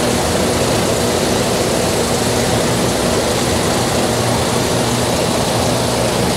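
Semi-truck diesel engine running steadily at low revs during slow maneuvering, a steady low hum under a constant hiss.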